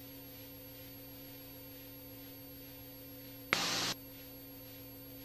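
Faint steady hum on the aircraft's radio and intercom audio, with a short burst of radio static about three and a half seconds in.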